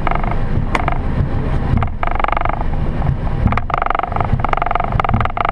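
Boeing 737 cockpit noise while taxiing: a steady low rumble from the idling engines and the rolling airframe, with small knocks and creaks from the cockpit. A muffled mid-pitched hum swells in about two seconds in and again from nearly four seconds.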